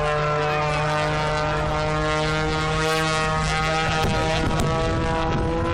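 Aerobatic plane's piston engine and propeller in a steady, even drone, its pitch wavering slightly as it manoeuvres overhead.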